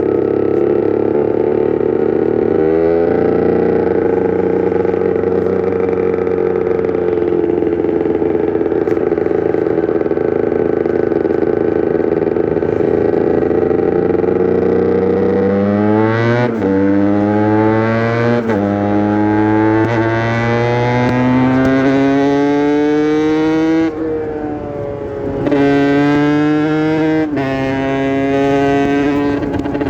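Aprilia RS 125's single-cylinder two-stroke engine under load. It holds a nearly steady pitch for about fifteen seconds. Then it revs up again and again, with a sudden drop in pitch at each gear change.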